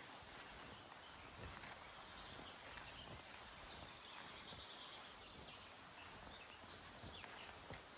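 Faint woodland ambience: a quiet, steady hiss with a few faint, distant bird calls.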